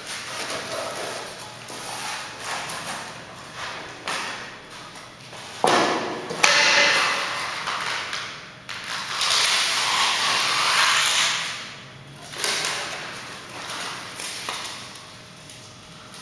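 Stiff green underlayment sheets being handled and slid into place over a concrete floor: rustling and scraping, with a thump about five and a half seconds in.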